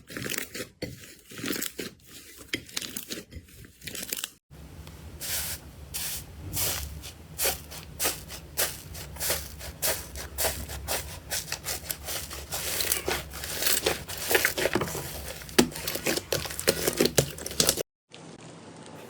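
Slime being squeezed and pulled by hand, giving dense crackling, crinkling pops and crunches. It breaks off briefly about four seconds in and again near the end.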